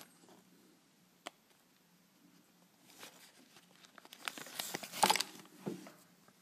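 Clear plastic bag of small metal parts handled: a single click about a second in, then crinkling plastic with light metallic clicks, loudest about five seconds in.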